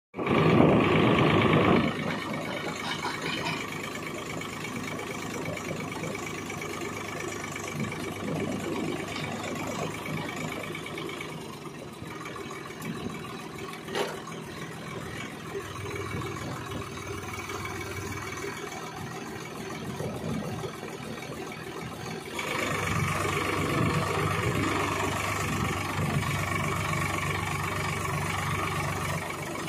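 Tractor diesel engine running steadily while powering a tractor-mounted post-hole auger. It opens with a louder rush lasting about two seconds and grows louder again about three-quarters of the way through, when the auger is down in the soil boring a pole hole. A single short click comes about halfway.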